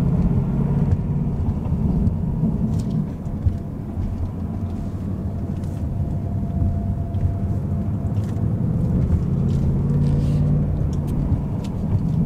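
Ford Mustang GT's 5.0-litre Coyote V8 pulling at low revs in first gear, heard from inside the cabin: a steady low engine note that swells a couple of times. There are a few faint light clicks, which the owner takes for the fuel injectors firing, and no BBQ tick; he credits a Ceratec treatment for the cure but is not yet sure of it.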